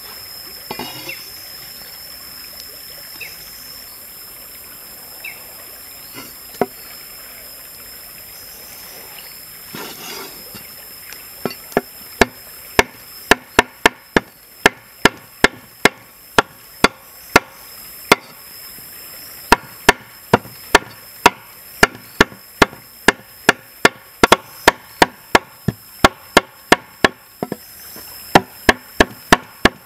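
Cleaver chopping squid on a chopping board: a few light knocks at first, then from about twelve seconds in a steady run of sharp chops, about two or three a second.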